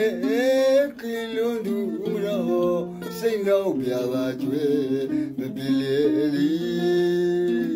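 A man singing a Burmese song to plucked mandolin accompaniment, holding a long note near the end.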